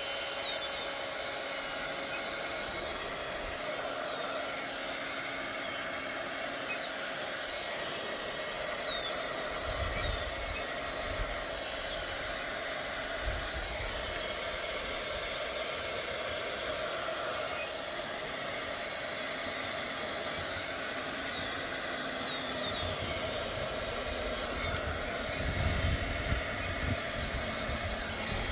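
Handheld craft heat gun blowing steadily, a continuous fan-and-hot-air hiss, as it melts the petals of a fabric flower. A few short bird chirps come through over it.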